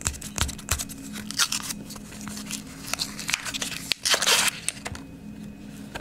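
Paper wrapper of a roll of half-dollar coins being torn and peeled open by hand: a run of crinkling and crackling, with a longer, louder tear a little after four seconds in.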